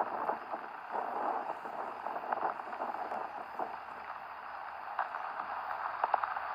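Rain falling with a steady hiss, individual drops tapping close on the microphone, a few sharper taps near the end.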